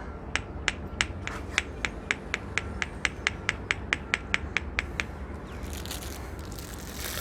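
A plastic fidget toy clicking rapidly and evenly, about four or five clicks a second, for around five seconds. Then the clicking stops and rustling handling noise follows near the end.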